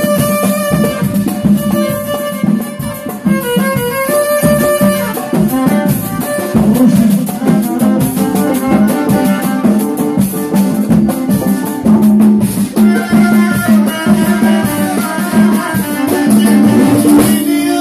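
Live band music: hand-played congas and a drum kit keeping a busy rhythm under a melody line.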